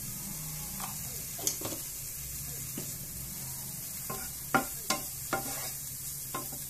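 Chopped banana flower sizzling in butter in a nonstick frying pan while a wooden spatula stirs it. The spatula knocks and scrapes against the pan several times, loudest about four and a half to five seconds in.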